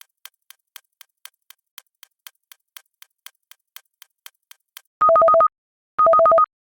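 Countdown timer's ticking sound effect, about four ticks a second. About five seconds in it gives way to the timer's final alarm, signalling that the countdown has ended. The alarm is much louder: half-second bursts of rapid beeping that alternate between two pitches, repeating once a second.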